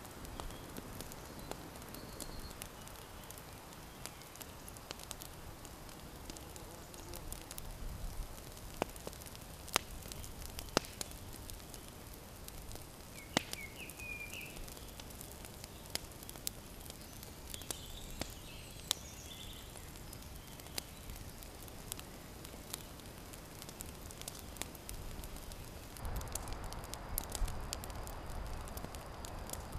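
Small wood campfire crackling with scattered sharp pops. A bird chirps briefly about halfway through, and a steady hiss rises near the end.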